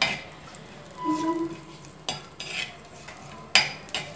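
A metal spoon stirring whole spices in hot oil in a clay pot, knocking and scraping against the pot in several short, sharp clinks. A faint sizzle of the oil runs underneath.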